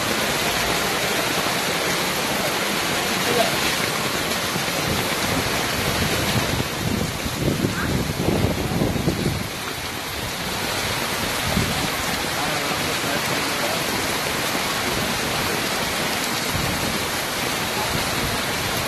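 Heavy rain pouring down and floodwater rushing along a street, a steady wash of noise.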